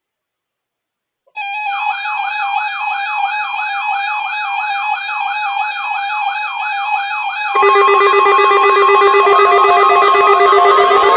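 Several weather alert radios sounding their alarms at once on receiving a NOAA Weather Radio Required Weekly Test. After about a second of silence, a fast warbling siren tone (about three sweeps a second) starts over steady high beeps. About six seconds later more radios join and it gets louder, into a dense clash of alarm tones.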